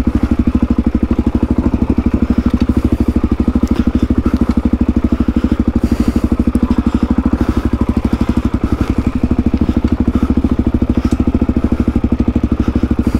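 Single-cylinder four-stroke dirt bike engine running at steady low revs with a fast, even pulse while the bike rolls down a steep, loose descent.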